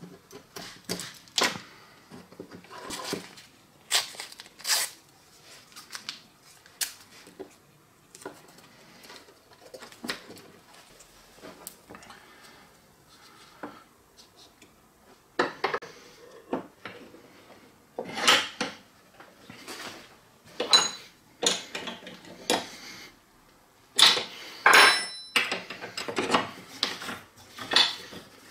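Metal and plastic parts of a disassembled electric drill being handled on a workbench: irregular clinks, taps and clatters, more frequent and louder in the second half.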